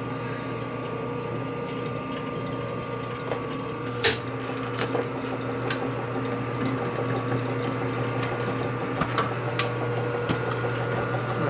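Metal lathe running steadily with a hum, with a few sharp clicks about four seconds in and again near the end.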